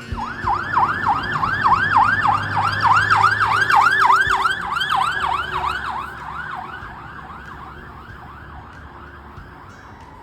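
Emergency vehicle siren in fast yelp mode: quick rising-and-falling wails, about three to four a second, loudest in the first half and then fading away, with a falling wind-down near the end.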